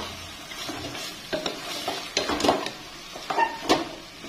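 A wooden spatula stirs pieces of snakehead fish in an aluminium pot, scraping and knocking against the pot about once or twice a second. Under the strokes the fish sizzles as it fries in oil and spice paste.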